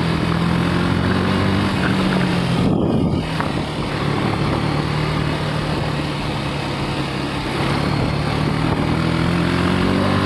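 KTM Duke 250's single-cylinder engine running under way, with a brief drop in level about three seconds in and the engine pitch rising near the end as it accelerates.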